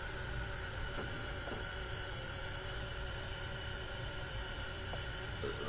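Steady background hiss with a faint steady hum and two faint clicks about a second in; no clear event from the oil draining is heard.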